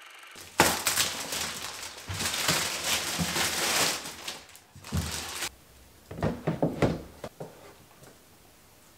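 Rustling and crinkling as recycling is handled at a cabinet, followed by a thump and a quick run of knocks and clicks from the cabinet.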